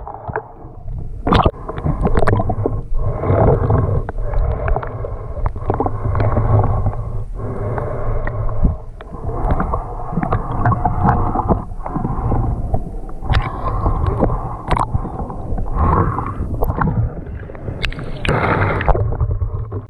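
Muffled water sloshing and gurgling around a GoPro camera housing held at and just under the sea surface by a swimming snorkeler, with a heavy low rumble and frequent sharp knocks and splashes.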